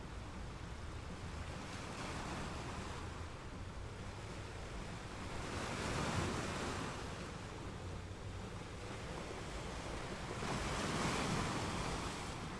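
Small waves washing onto the beach, the surf swelling louder about halfway through and again near the end, over a steady low rumble of wind on the microphone.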